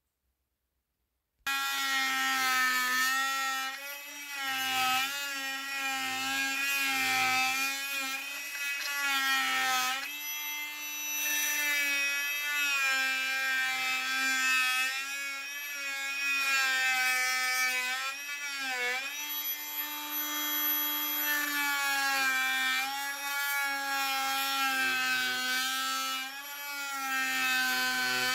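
Oscillating multi-tool cutting into a timber log, starting about a second and a half in as a steady, high whine. The pitch sags briefly under load as the blade is pushed into the wood, most deeply about two-thirds of the way through.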